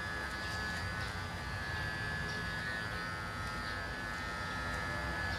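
Electric pet grooming clipper running with a steady buzz and a thin high whine.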